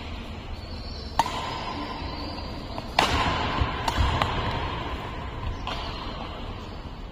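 Badminton rally: racket strikes on the shuttlecock echo in a large hall, one about a second in and a louder one at three seconds. Heavy footfalls follow as the player lunges across the court.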